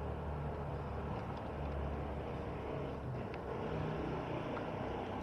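Motor vehicle engine running steadily with a low hum, with a few faint ticks over it.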